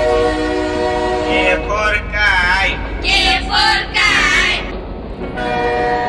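Cartoon train sound effect: a train horn held steady over a constant low rumble. It gives way to a high, sliding voice partway through and comes back near the end.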